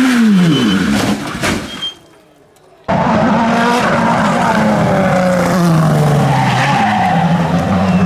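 Racing prototype engines at full throttle. The first car passes close, its engine pitch falling steeply as it goes by, and fades out about two seconds in. After a near-silent second, a second prototype's engine cuts in and runs hard, its pitch stepping down a couple of times.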